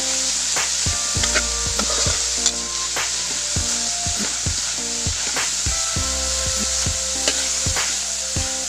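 Minced pork and chillies sizzling in a hot metal wok while a metal spatula stirs and scrapes, clicking against the pan two to three times a second over a steady frying hiss.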